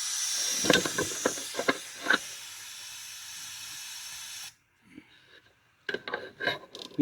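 Steady white-noise hiss from the white-noise test of a 10-metre SSB transceiver, thin in the lows, with a few short clicks in the first two seconds. It cuts off suddenly about four and a half seconds in.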